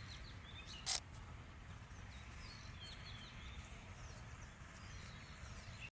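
Faint bird chirps over a low, steady rumble, with a single sharp click about a second in.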